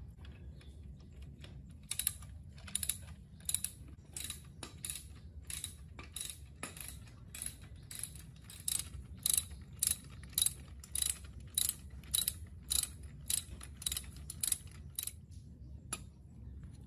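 Ratcheting wrench clicking in a steady run of strokes, about two a second, as it turns the rear axle nut of a mini dirt bike; the clicking stops about a second before the end after one last click.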